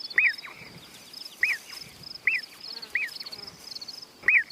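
Prairie dogs chirping the all-clear after the predators have gone: five short, sharp chirps about a second apart, over a faint, high, evenly repeating trill.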